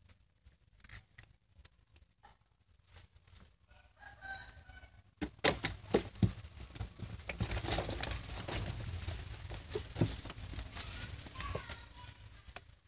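A collapsible net fish-and-shrimp trap being shaken out and its catch handled over a styrofoam box: a few small clicks and rustles of netting at first, then from about five seconds in a louder, denser run of clattering and rustling as shrimp and small fish are tipped and sorted into the box.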